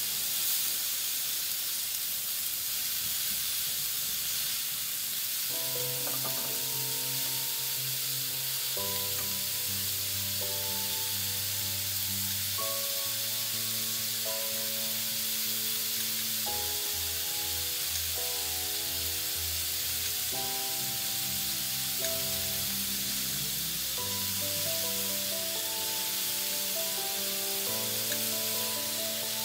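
Skewered meat kebabs with peppers and onion sizzling steadily on a hot stovetop griddle plate, under background music.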